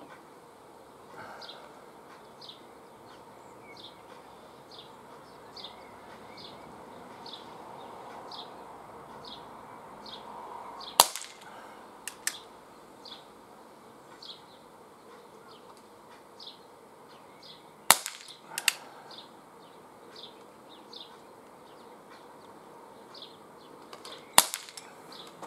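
An ASG Schofield 6" CO2 air revolver firing pellets: three sharp shots, about seven seconds apart, each followed about a second later by a lighter click.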